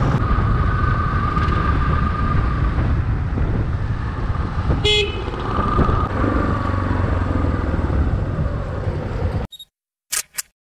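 Steady riding noise from a Yamaha XTZ 250 single-cylinder motorcycle, engine and wind together. A vehicle horn toots once, briefly, about five seconds in. The sound cuts off abruptly near the end, leaving silence broken by a few short clicks.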